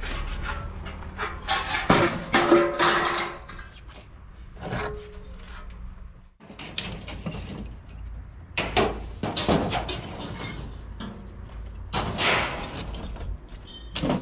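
Scrap metal, old iron pieces and tin cans, thrown by hand onto a scrap heap: irregular clanks and crashes of metal on metal, some ringing briefly.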